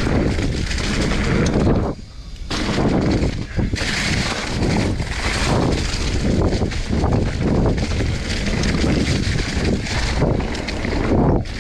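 Mountain bike riding fast down a dirt trail covered in dry fallen leaves: tyres crunching through the leaves, wind on the microphone, and repeated knocks and rattles from the bike over bumps. The noise dips briefly about two seconds in.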